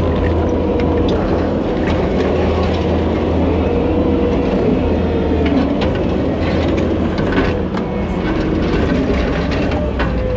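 Kubota SVL75 compact track loader's diesel engine running steadily under load, with a wavering whine over it. Scattered knocks and clatter come through, mostly in the second half.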